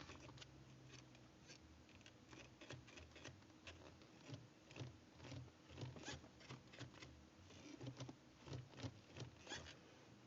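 Faint clicking and clunking from a loose manual gear shifter being wiggled, soft knocks about twice a second: a sign of worn shifter bushings.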